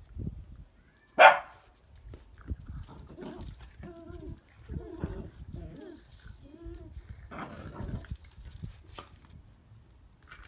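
Two whippets play-fighting, with one short, sharp bark about a second in, then a run of wavering, grumbling play noises.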